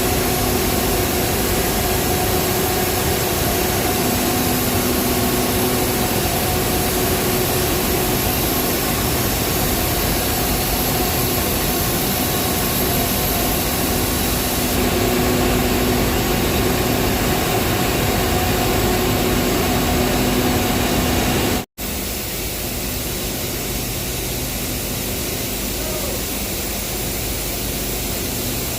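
Power plant machinery running: a loud, steady industrial noise with several constant hum tones. It cuts out for an instant about 22 seconds in, then carries on a little duller and quieter.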